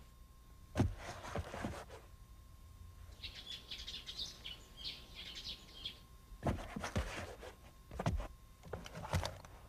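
Small birds chirping for about three seconds in the middle, set between soft knocks near the start and a run of shuffling thumps near the end as feet step into sneakers.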